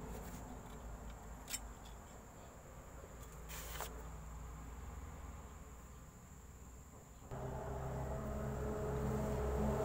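Faint clicks of small metal parts being handled while gearbox planetary-gear locks are fitted, over a steady high electrical whine. About seven seconds in a steady, low engine-like hum starts abruptly and keeps running.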